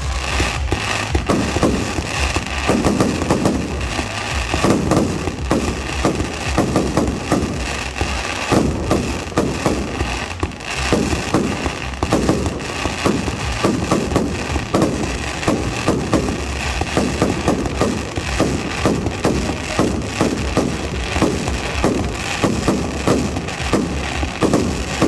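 Fireworks display going off in a fast, continuous barrage of bangs and crackling, several shells bursting every second.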